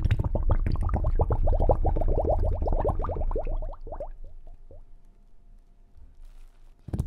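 Recorded underwater whale sounds: a fast run of short gurgling, pitched sweeps over a low rumble. It thins out and fades about four seconds in, and a fresh burst starts near the end.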